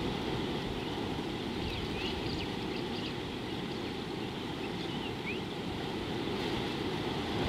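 Steady wind rumbling on an outdoor microphone, with faint, brief bird chirps scattered through the middle.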